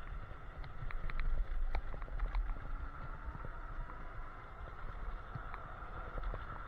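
Electric scooter riding at speed: wind buffeting the microphone and tyre rumble on the asphalt, with a steady high whine and scattered rattling clicks, a little louder about a second in.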